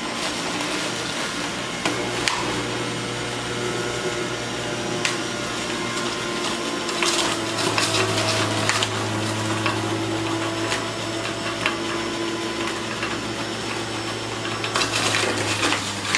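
Breville centrifugal juicer motor running steadily on its low setting as kale is pressed down the feed chute and shredded, with brief crackling about seven seconds in and again near the end as more greens go in.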